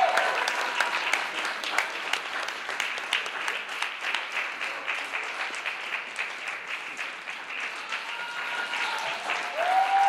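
Audience applauding, a dense patter of many hands that eases slightly in the middle and swells again, with a voice calling out over it near the end.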